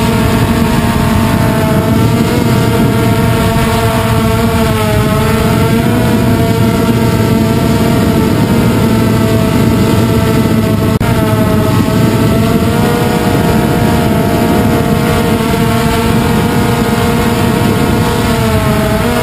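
Multirotor drone's motors and propellers whining steadily at a near-constant pitch that shifts slightly now and then as it manoeuvres.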